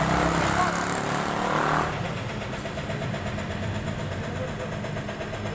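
A motor vehicle's engine idling steadily close by. A louder street hiss over it drops away about two seconds in, leaving the steady idle hum.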